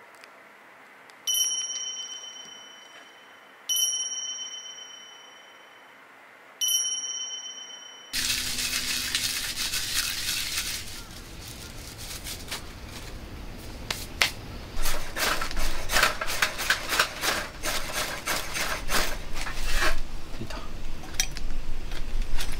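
Three bright chime strikes, each ringing out for about two seconds. Then, after a cut, dry wood shavings and kindling are handled in a metal fire pit, followed by a quick run of sharp scraping clicks as the fire is lit with a metal match (ferro rod) and the shavings catch.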